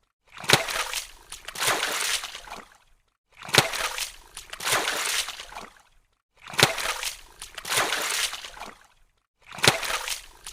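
Water splashing and sloshing in a repeating pattern: about every three seconds a sharp splash, then sloshing that swells twice and dies away into a short silence.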